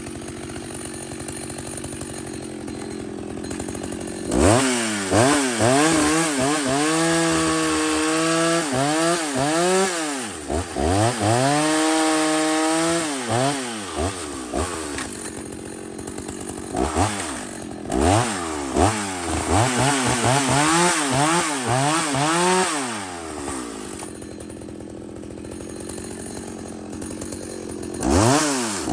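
Two-stroke chainsaw idling, then revved up and down repeatedly for most of the stretch, held at high revs a couple of times. It drops back to idle and revs once more near the end.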